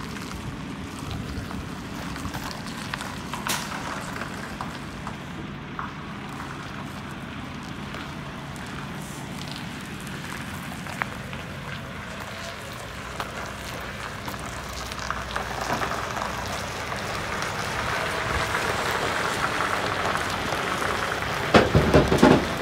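A semi-truck's diesel engine running at low revs while the tractor-trailer slowly reverses and turns. A gritty, crackling noise grows louder in the second half as the trailer draws near, and a few loud thumps come near the end.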